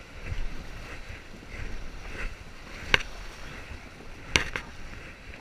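Whitewater river rushing around a paddle raft as the crew paddles, with a sharp knock about three seconds in and two more close together near the end.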